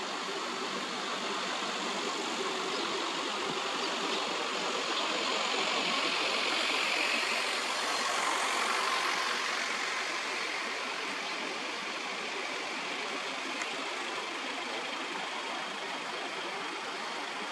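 Steady background noise of distant road traffic, swelling for a few seconds around the middle.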